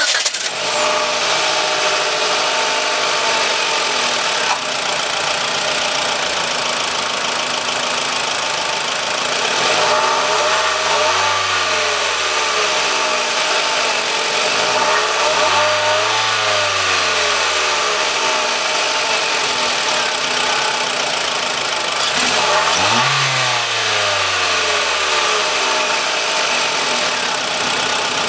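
Mitsubishi ASX's 1.8-litre MIVEC inline-four engine idling, then revved three times. Each rev rises and falls in pitch over a couple of seconds, the first about ten seconds in and the last, the quickest to climb, a little past twenty seconds.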